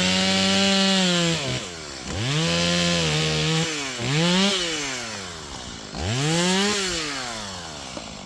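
Two-stroke Stihl chainsaw revved up to full throttle four times. The first two bursts are held for over a second, the third is brief, and after each the engine drops back toward idle. The last one winds down slowly.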